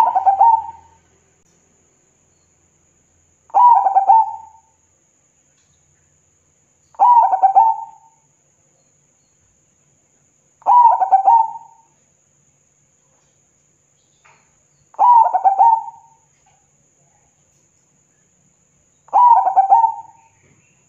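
Zebra dove (perkutut) singing: six short phrases of rapid, run-together cooing notes, one every three to four seconds, each about a second long.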